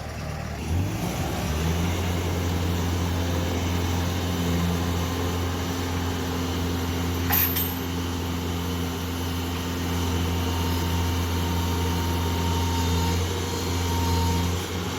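Bobcat skid-steer loader's engine revving up about a second in and then running hard at steady high revs while it strains to pull a shipping container. A single sharp click or knock about halfway through, and the engine dips briefly near the end.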